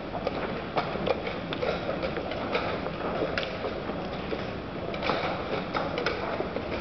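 Irregular sharp clicks of chess pieces being set down on boards and chess clock buttons being pressed during blitz games, many boards at once, over steady room noise.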